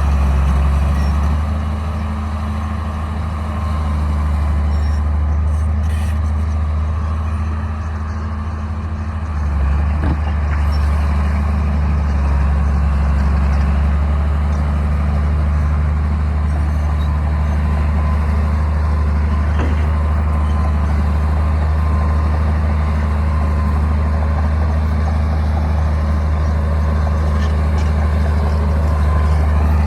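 Bulldozer's diesel engine running steadily with a deep drone. It eases off slightly for several seconds and picks up again about nine seconds in.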